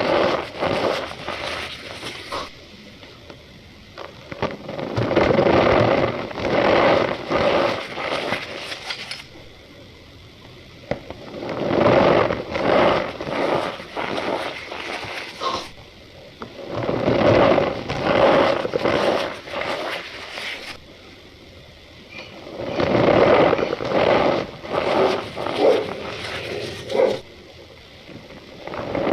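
Cornstarch powder squeezed and crunched by hand, a squeaky, crackly crunch that comes in stretches of two to four seconds with quieter pauses between, about five or six times over.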